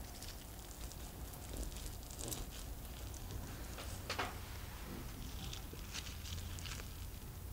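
Knife cutting down through a stack of pan-fried potato-zucchini pancakes, the browned crust giving light, scattered crackles, then the cut wedge being pulled apart with a sharper crackle about four seconds in.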